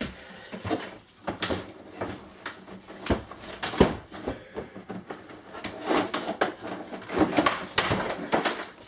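Irregular knocks and clatter of loose items being handled and moved about while a workshop drawer is cleared out by hand.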